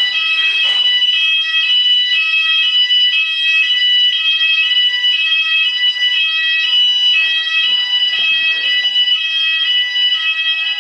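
Building fire alarm sounding continuously: an electronic two-tone signal whose pitch switches back and forth about every half second, signalling an evacuation.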